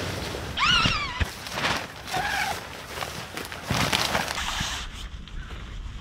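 Tent fabric rustling and swishing in several bursts as a tent is shaken out and spread on the ground, with a bird calling twice in the first few seconds.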